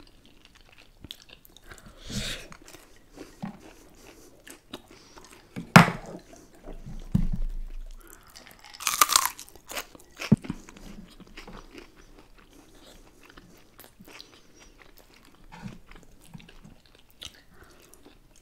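Close-miked eating: chewing and crunching of food with scattered small clicks, a sharp crack about six seconds in and a loud crunchy bite about nine seconds in.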